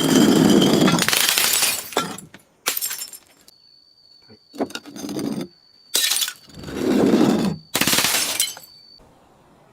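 Glass bottles being smashed and crushed: a run of about six loud shattering, crunching bursts, the first lasting about two seconds.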